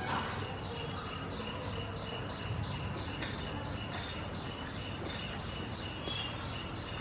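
A bird calling in an even rhythm of high chirps, about three to four a second, over a low steady outdoor rumble.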